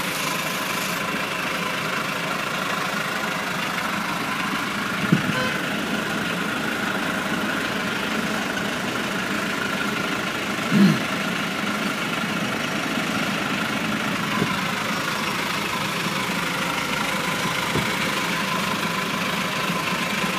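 Steady car engine and road noise heard from inside the cabin of a moving car. There is a brief knock about five seconds in and a short, louder sound about halfway through.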